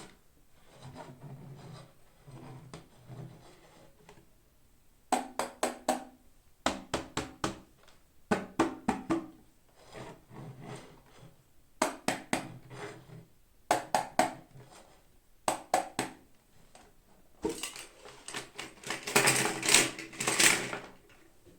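Toy packaging being handled and opened by hand: repeated quick groups of four or five sharp clicks and taps, then a longer stretch of crinkling near the end.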